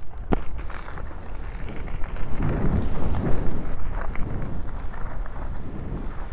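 Skis sliding and scraping over snow with wind buffeting the microphone, heard as a low, uneven rumble, with a sharp knock about a third of a second in.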